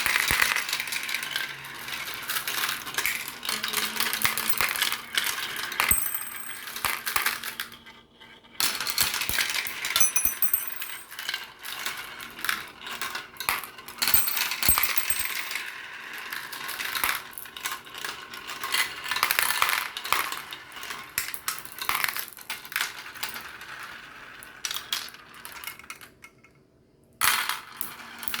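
Marbles rolling and clattering down a marble run: a dense stream of small hard clicks and rattles, with a few high ringing pings now and then. The clatter breaks off briefly twice.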